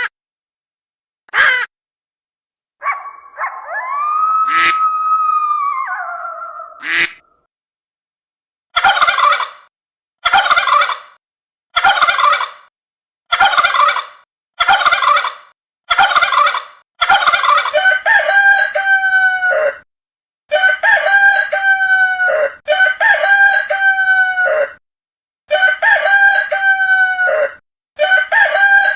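A rooster crows once, a long call that rises and falls. Then chickens cluck in short separate calls about once a second, turning into longer runs of quick clucking in the second half.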